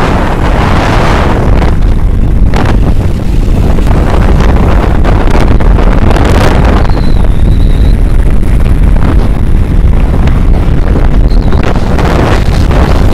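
Wind buffeting the microphone of a moving vehicle in strong gusts, over a steady low rumble of road and engine.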